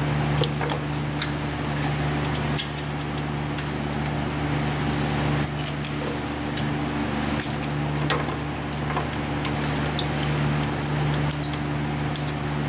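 Scattered light metallic clicks and clinks of an A/C compressor, its hose fittings and parts being handled and fitted into a truck's engine bay, over a steady low hum.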